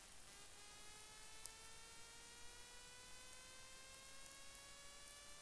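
Near silence after the music cuts off: only a very faint hum that rises slowly and steadily in pitch, with a couple of tiny clicks.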